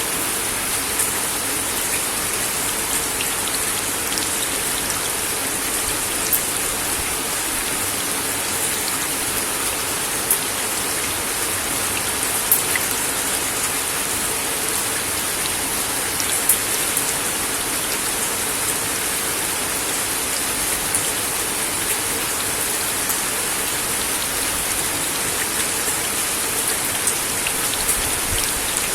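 Steady rain falling on a wooden deck: an even hiss of rain with scattered sharper drops ticking on the boards.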